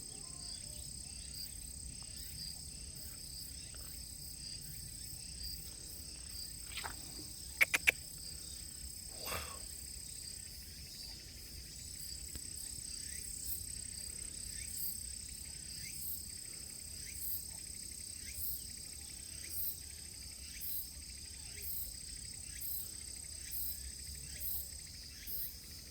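Forest insects keep up a steady, high-pitched drone. In the second half they add short, very high chirps about once a second. Three sharp clicks come in quick succession near the eight-second mark and are the loudest sound.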